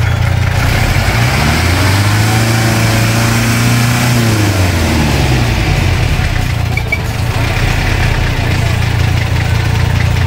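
A 4x4 jeep's engine working through deep mud: a steady low running note that revs up about a second in, holds, and falls back about five seconds in.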